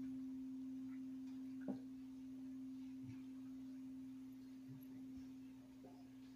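A memorial bell, struck once after a name is read in remembrance, ringing on as one pure, steady tone that slowly fades. A light knock sounds a couple of seconds in.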